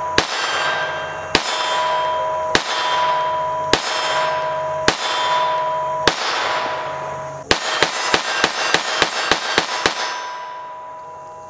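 Kel-Tec P17 .22 LR semi-automatic pistol firing: six shots a little over a second apart, then, about seven and a half seconds in, a fast string of about a dozen shots at roughly five a second. A steady ringing tone hangs under the shots throughout.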